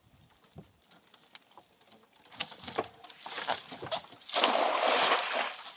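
Cast net being thrown: a run of sharp clicks and rustles as the net is swung out, then a loud splash lasting about a second as the weighted net lands spread on the water.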